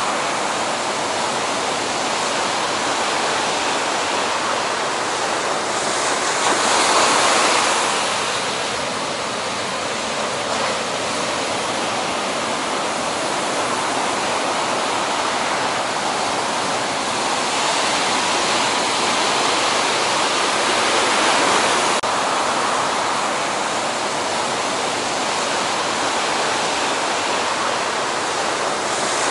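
Heavy ocean surf: a steady roar of breaking waves and churning whitewater. It swells louder about seven seconds in and again around twenty-one seconds.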